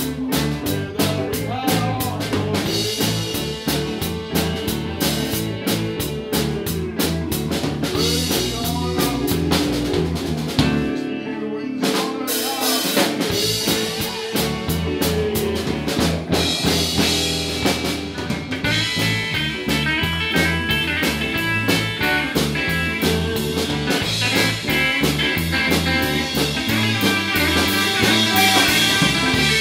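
Live band playing: electric guitar, bass guitar and drum kit keeping a steady beat. About eleven seconds in the drums and bass stop for a second or two, then the band comes back in.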